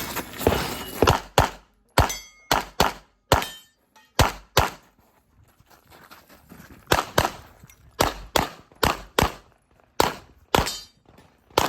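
A long string of rapid handgun shots, about two to three a second, in two runs split by a pause of about two seconds, with metallic clanging and ringing after some shots.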